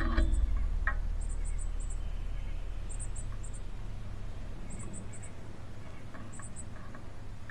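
Outdoor backyard ambience: faint, high-pitched chirps in quick groups of three or four, repeating every second or two, over a low steady rumble.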